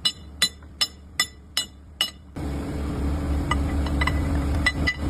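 A hammer striking steel at a steady pace, about two and a half ringing blows a second, stopping about two seconds in. A steady machine hum with a few clicks then takes over.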